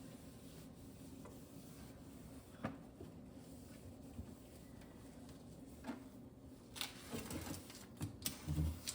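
Scattered light knocks and scrapes of plastic refrigerator drawers being handled and the compartment wiped, coming more often near the end, over a steady low hum.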